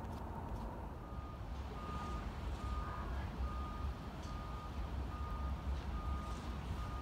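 A repeating electronic beep, one short steady tone a little faster than once a second, starting about a second in, over a low steady rumble.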